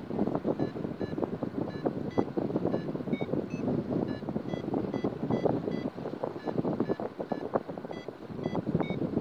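Wind rushing and buffeting over the microphone in paraglider flight, with a paragliding variometer beeping in short tones of shifting pitch, about two or three a second: the climb tone that signals the glider is rising in lift.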